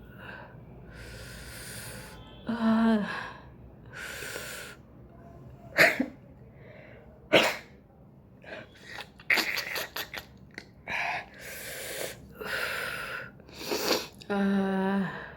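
A person sneezing over and over while tickling the nose with a cotton ear bud, with sharp hissing inhales and short voiced cries between the sneezes. The two loudest sneezes come about six and seven and a half seconds in.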